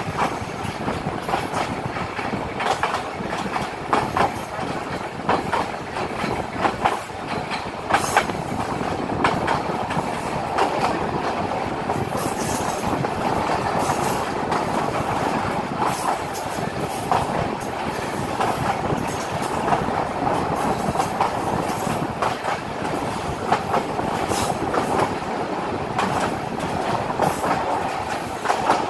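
Rangpur Express passenger coaches running at speed on the track, the steady rumble of the wheels broken by irregular clicks and clatter as they pass over rail joints.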